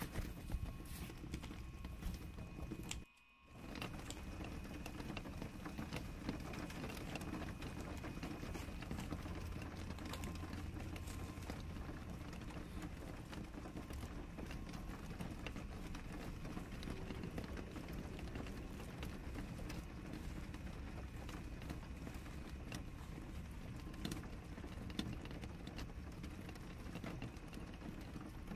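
Bubble-wrap packaging being handled and cut open with scissors: plastic crinkling with scattered small clicks and snips. The sound cuts out for a moment about three seconds in.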